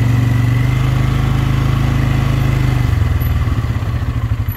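Polaris Sportsman X2 ATV engine running as the quad drives forward along a dirt trail. It runs steadily for about three seconds, then drops to a slower, pulsing beat.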